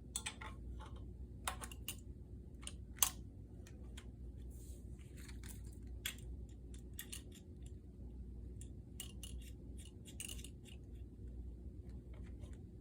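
Scattered light clicks and rustles of an airbrush air hose and its fittings being handled and pushed into place, with one sharper click about 3 seconds in.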